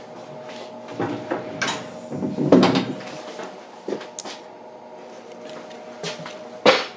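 Sliding gangway door between the cars of a JR West 227 series train opening and being passed through, with knocks and clatter and footsteps. The loudest clatter comes about two and a half seconds in and another sharp knock near the end, over a steady hum.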